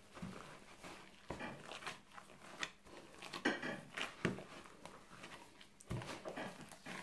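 Latex-gloved hands kneading and squeezing a raw cabbage naem mixture of shredded cabbage, ground pork and cooked rice in a plastic bowl. Irregular wet squishes and smacks, the loudest about halfway through.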